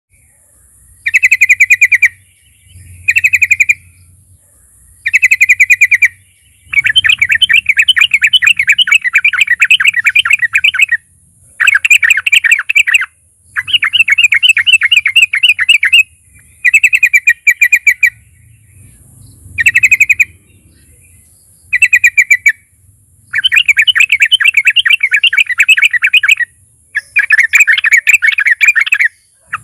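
Yellow-vented bulbul (trucukan) singing in about eleven bursts of rapid chattering notes, each burst one to four seconds long with short pauses between. This is the loud, persistent challenge song that keepers play to stir other bulbuls into singing.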